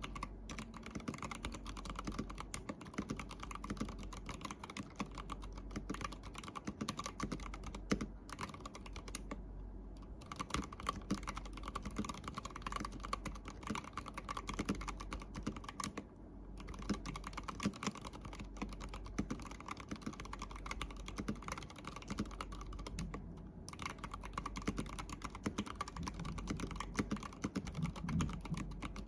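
Typing on an ABKO Hacker ADK05 acrylic mechanical keyboard with red linear switches and clear ice-cube keycaps: a fast, steady run of keystroke clacks that pauses briefly three times.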